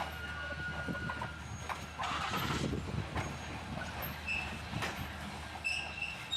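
Slow-moving steam-hauled passenger train rolling into a station, with wheels knocking and creaking on the rails. A thin, steady squeal runs through the first second or so, and a brief rush of noise comes about two seconds in.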